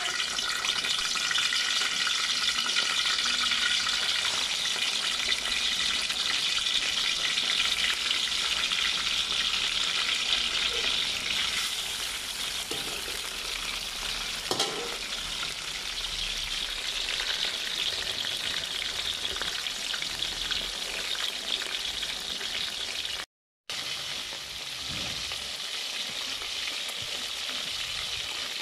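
Small whole fish shallow-frying in hot oil in a steel wok, a steady sizzle that eases a little after about twelve seconds. There is one sharp knock about halfway through, and the sound cuts out for a moment near the end.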